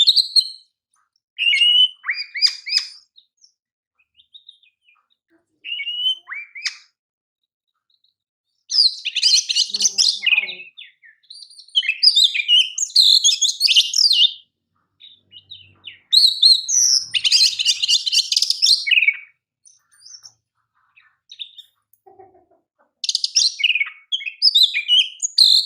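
Oriental magpie-robin (kacer) singing: separate bursts of varied high whistles, chirps and fast rattling trills, with pauses of one to a few seconds between phrases.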